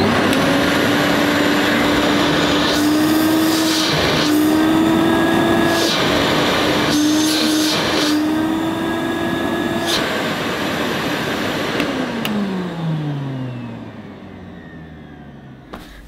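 Hoover Sensotronic System 10 (S3448) cylinder vacuum cleaner running: a steady motor hum over a rush of air, with a few brief swells in the airflow noise. About twelve seconds in it is switched off and the motor winds down, its pitch falling away.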